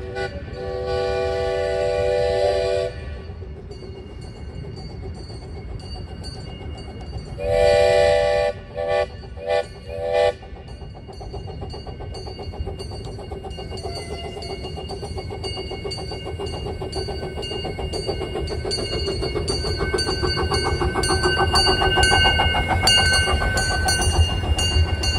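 Steam whistle of a small live-steam locomotive: one long blast, then about five seconds later a second long blast followed by three short toots. The train then approaches with a running clatter that grows steadily louder toward the end.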